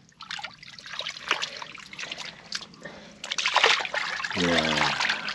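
Shovel digging into waterlogged mud: irregular wet squelches, sucks and splashes.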